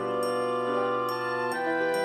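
Background music: sustained chords with a bright, chiming melody, the chord changing about one and a half seconds in.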